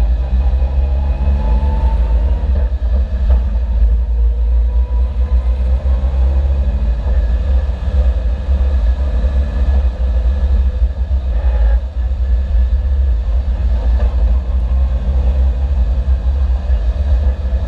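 Suzuki Jimny engine and exhaust under way, a heavy low rumble with the engine note rising in pitch as it accelerates and breaking off at a gear change about two and a half seconds in, then climbing again. A short sharp knock comes near twelve seconds. The engine is one the owner says has begun misfiring, its intake, exhaust and combustion timing thrown out by a distorted engine.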